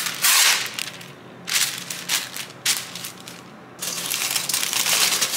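Wax paper pulled off its roll, torn and laid on a metal baking sheet, with short separate rustles in the first three seconds. From about four seconds in comes continuous crinkling of paper and aluminium foil as the foil cover on a bowl is handled.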